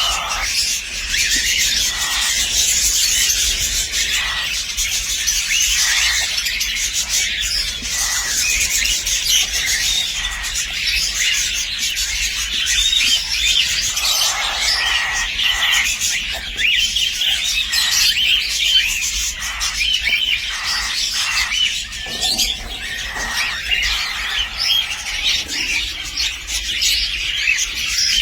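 Several cockatiel chicks calling continuously, a dense chorus of overlapping high-pitched chirps and squeaks.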